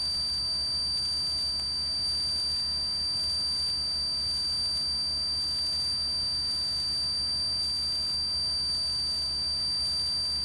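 A steady, high-pitched electronic tone over the steady low drone of the Cessna 182's engine and propeller at takeoff power in the climb-out, heard through the headset intercom feed.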